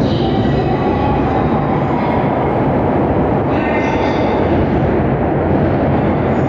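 Shinkansen train moving through an underground station platform: a loud, steady rumble with brief high ringing tones that come and go every few seconds.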